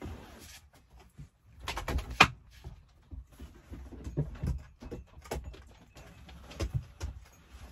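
Irregular knocks and clicks, with the sharpest knock about two seconds in.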